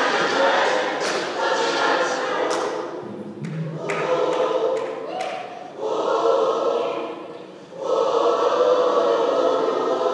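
A choir singing a slow hymn in long held notes, the phrases breaking briefly about three and a half and again about seven and a half seconds in.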